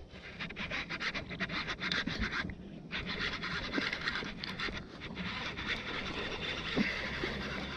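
Fishing reel being cranked, a fast, steady clicking whir as line is wound in, stopping briefly about two and a half seconds in and then going on.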